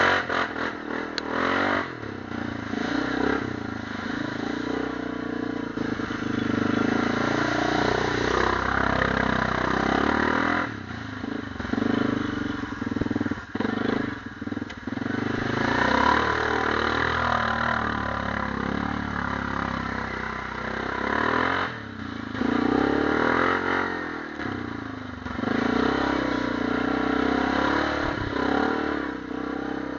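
ATV engine running and revving in surges as the quad drives through mud, with a stretch of splashing about halfway through as it ploughs through a deep puddle.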